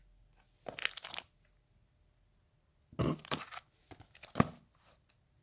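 Comic books in plastic bags being handled: crinkly rustles in two short spells, with a sharper crackle about four and a half seconds in.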